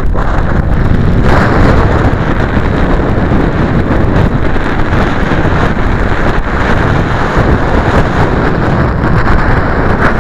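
Strong wind buffeting the microphone in a loud, fluctuating rush, mixed with surf breaking on the beach.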